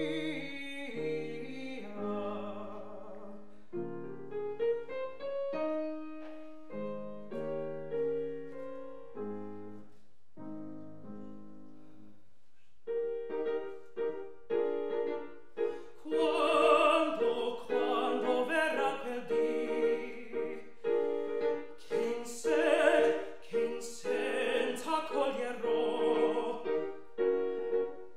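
Classical art song for male voice and grand piano. The piano plays alone for roughly the first half, then the singer comes in with a full, operatic voice and vibrato over the piano accompaniment.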